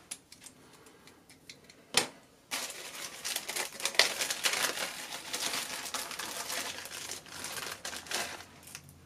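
Packaging crinkling and rustling for several seconds while the playset's toy siege weapon and its ammunition are unpacked, after a single sharp click about two seconds in.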